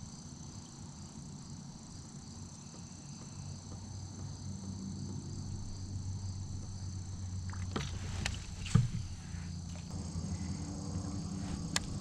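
Insects droning steadily in a high, thin band over a low steady hum, with a few light knocks around eight seconds in.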